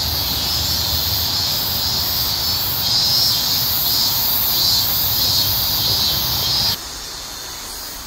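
A steady, high-pitched drone of insects, pulsing slightly, over a low rumble. It cuts off abruptly near the end, leaving a quieter background.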